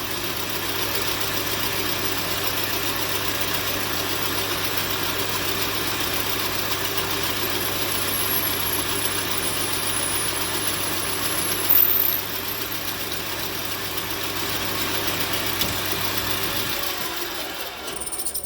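Lathe running while a drill bit bores a hole about 14 mm deep into the end of a new trumpet valve stem blank, with a steady hum and even machining noise. There is a brief louder knock about two thirds of the way through, and near the end the motor hum stops and the machine runs down.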